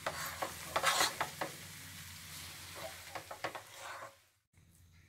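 A spoon stirring and scraping fried noodles in a nonstick frying pan, in scattered strokes, with a faint sizzle from the still-hot pan. The sound cuts out almost completely about four seconds in.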